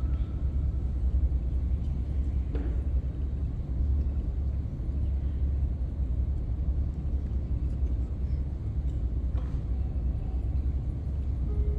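Steady low rumble of room noise with no singing or music, broken by a couple of faint knocks.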